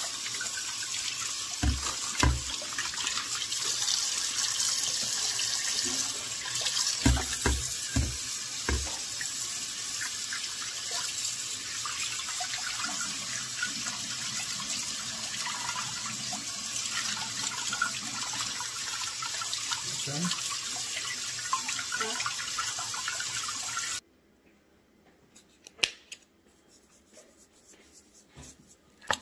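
Kitchen tap running into a stainless steel sink while a raw whole chicken is rinsed under it, with a few dull thumps early on and again around the middle. The water sound stops abruptly near the end, leaving quiet with a couple of faint clicks.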